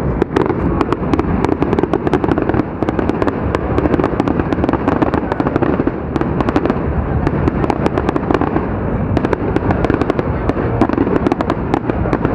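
Fireworks display: a dense, continuous barrage of bangs and crackles, several sharp reports a second over a steady low rumble.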